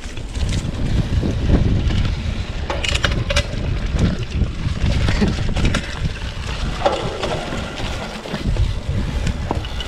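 Mountain bike riding down a muddy downhill trail: a steady rush of wind buffeting the microphone, with scattered clicks, knocks and rattles from the bike over rough ground.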